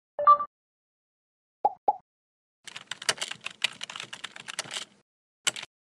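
Computer keyboard typing sound effect: a rapid run of key clicks lasting about two seconds, with one last click near the end. It is preceded by a short two-tone blip and two quick clicks.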